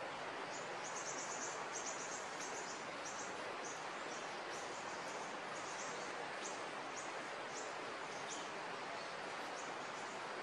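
Steady outdoor hiss with a run of short, high-pitched chirps, about two a second, that come and go, from a small bird or insect.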